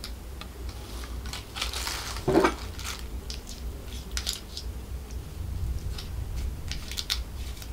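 Close-up handling sounds at a meal: light clicks and crinkles of a small plastic sauce cup and the plastic wrap under a heap of fried rice, and a fork picking at the rice and tandoori chicken. A brief low sound stands out a little over two seconds in.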